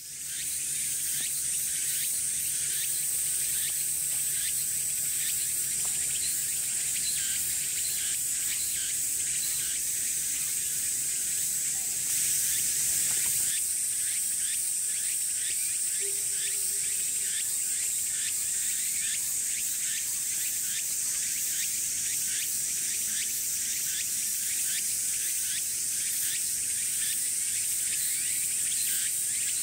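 Summer chorus of cicadas: a steady high-pitched drone with a fast rattling pulse over it. A faint low hum sits underneath and stops about thirteen seconds in.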